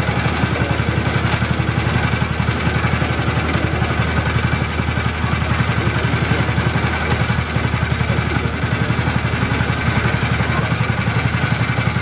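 A boat engine idling steadily, with an even, fast low chugging.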